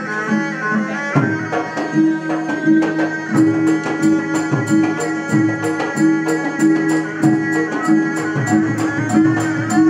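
Traditional Malay wayang kulit ensemble music: a reedy serunai melody over hand drums, with small cymbals striking a steady quick beat from about three seconds in.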